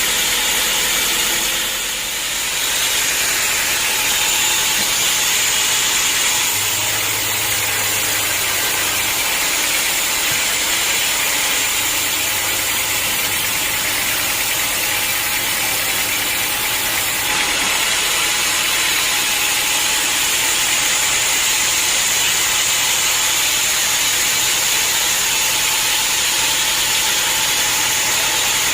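Sawmill saw running and cutting through a hard acacia log, a steady high-pitched hissing noise that holds evenly throughout.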